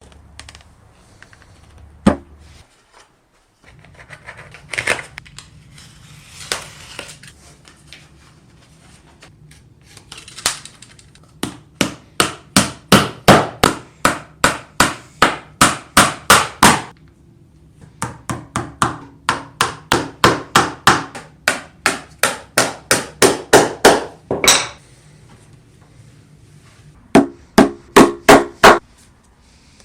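Hammer striking wood in quick, steady runs of blows, about three a second, with a few scattered knocks and handling sounds before the first run.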